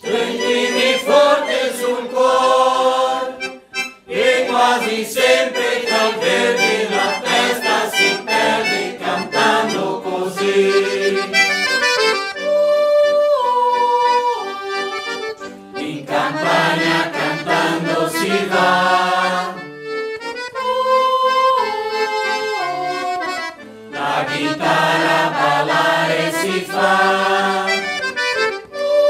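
Mixed choir of men and women singing in parts to accordion accompaniment, in phrases broken by short pauses.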